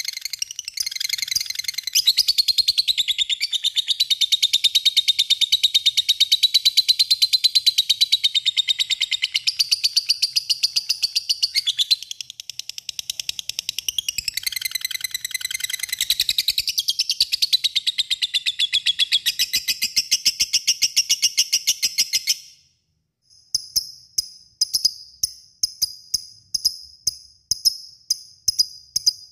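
Lovebird giving a long ngekek: a rapid, unbroken chattering trill of high notes lasting over twenty seconds. After a short break it continues as separate sharp chirps about two a second.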